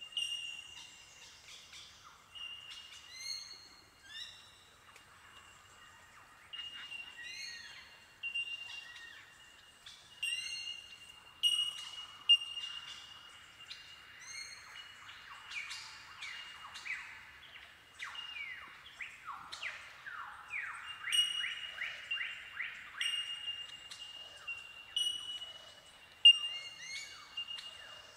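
Bell Miners (bellbirds) giving their ringing, bell-like 'tink' calls, many birds overlapping into an incessant windchime-like chorus. Around the middle comes a quick run of sweeping notes.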